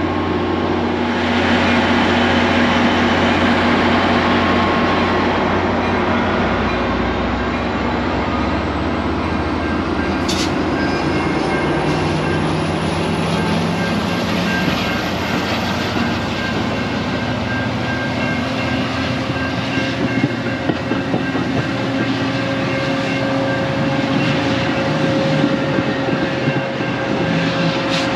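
Metra commuter train pulling out of the station, its stainless-steel bilevel coaches rolling past with steady rumble and scattered clicks of wheels over rail joints.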